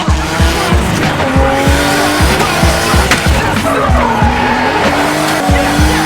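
Drift cars' engines revving and tyres squealing under music with a steady, fast kick-drum beat, about two beats a second.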